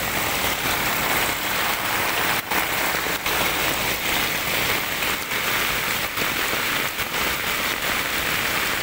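Heavy typhoon rain falling steadily onto a wet asphalt road, an even hiss.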